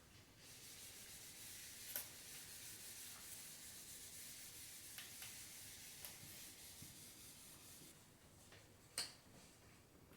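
Faint, steady scratching of a pen writing on paper, with a sharp tap about two seconds in and another near the end.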